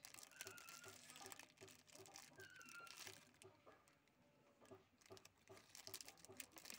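Near silence with faint clicks and rustles as a starter-motor solenoid and its wires are handled.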